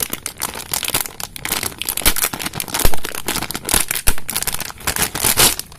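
Clear plastic wrapping and its pink plastic tooth guard crinkling and crackling as they are pulled off a new 40-tooth motorcycle rear sprocket by hand.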